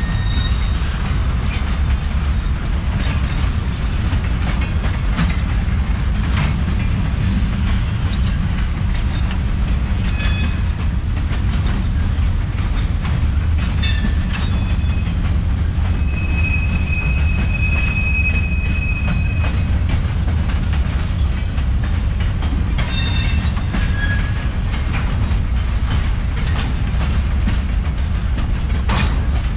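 Freight train cars (tank cars and hoppers) rolling past with a steady low rumble and the clicking of wheels over rail joints. A high, steady wheel squeal is held for about three seconds just past the middle, and a shorter squeal comes about three-quarters of the way through.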